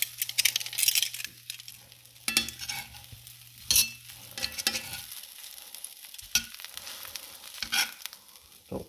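Butter sizzling and crackling in a cast-iron skillet as two slices of white bread toast in it. Occasional clicks and scrapes come from metal tongs moving the bread in the pan.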